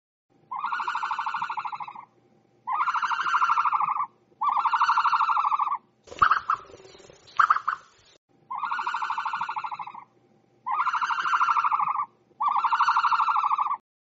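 Calls played as an ostrich's sound: six long, even, pitched calls of about a second and a half each, in two groups of three. Between the groups come two short, harsh, breathy sounds.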